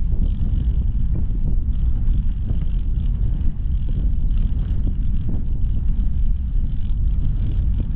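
Wind rumbling on the microphone as a bicycle rolls along a brick-paved towpath: a steady low rumble of wind and tyre noise, with small knocks from bumps in the paving.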